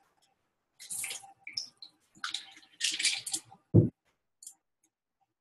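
Quiet handling noises at a computer desk, a few soft scuffs and rustles, then one sharp click just before four seconds in and a faint tick after it.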